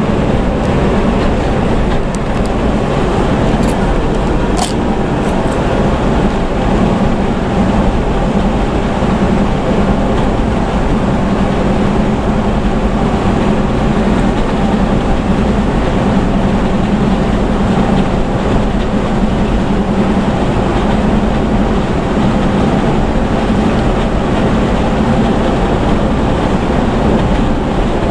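Inside a Scania coach bus cruising at highway speed: a steady engine drone with a strong low hum, mixed with road and tyre noise, and a few faint ticks a few seconds in.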